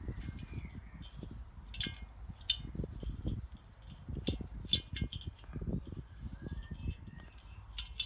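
Small metal parts and tools clinking and tapping as they are handled during reassembly, with several sharp ticks over a low, uneven rumble of handling.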